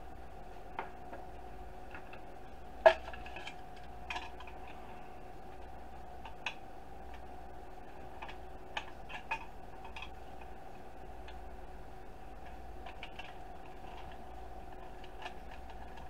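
Scattered plastic clicks and taps as a screwdriver pries at the black plastic housing of a Roomba charging dock, the sharpest click about three seconds in. A faint steady hum runs underneath.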